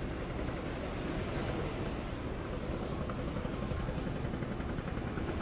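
Steady low rumble of a boat's engine running, with no sudden sounds or changes.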